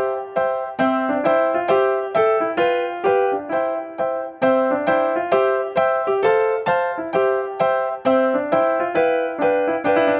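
Background music: a light piano melody of evenly struck, decaying notes at a steady tempo, about two to three notes a second.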